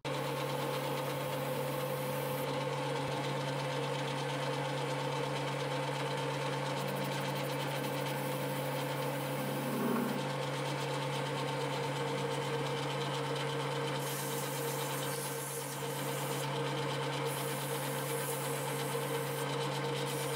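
Metal lathe running steadily with a steel roller blank spinning in its chuck: an even mechanical hum that holds at one pitch throughout.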